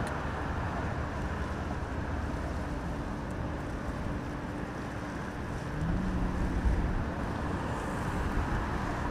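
Steady outdoor rumble of wind buffeting the microphone, with the faint steady hum of a motor whose pitch steps up about six seconds in, where the noise briefly gets louder.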